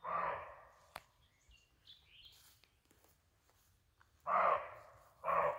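Roe deer barking: three short, harsh barks, one at the start and two close together about four seconds in. Faint bird chirps sound in the gap between them.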